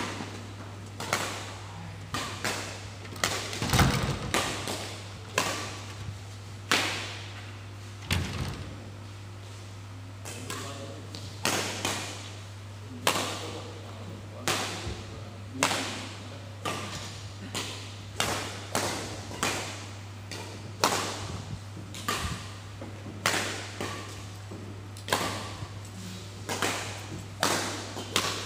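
Badminton rally in a large hall: rackets striking the shuttlecock in quick succession, each hit a sharp crack with a short echo, mixed with thuds of players' shoes on the court. A steady low hum runs underneath.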